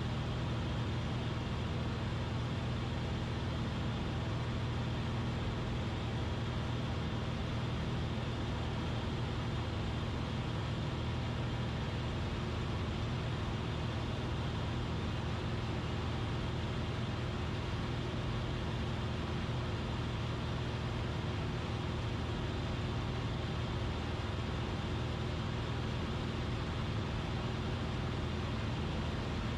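Cessna 172RG's four-cylinder Lycoming engine and propeller droning steadily in cruise flight, heard in the cabin.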